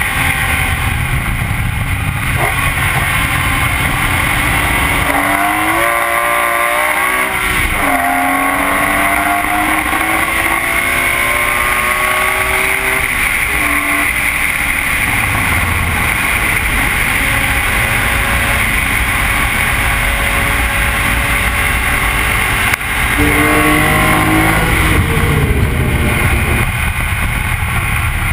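BMW E46 M3's straight-six engine under hard acceleration on track, pitch climbing and then dropping sharply at upshifts before climbing again. Heavy wind and road noise from a camera mounted on the outside of the car sit over the engine throughout.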